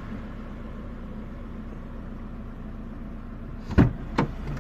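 Car engine idling steadily, with two short sharp clicks a little before the end.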